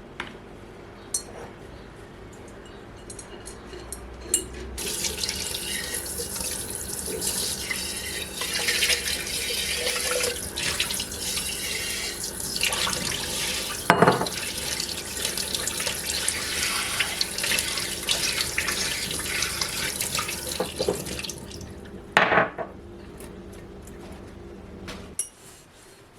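A tap running into a sink for about sixteen seconds, starting about five seconds in, with clinks of glass and dishes being rinsed. There is a sharp knock in the middle and another just after the water stops.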